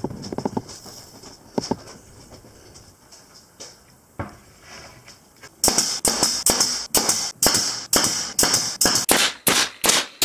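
Bostitch pneumatic nailer driving nails into a plywood panel. A few scattered knocks come first, then from about halfway a quick steady series of sharp shots, about three a second, each with a short air hiss.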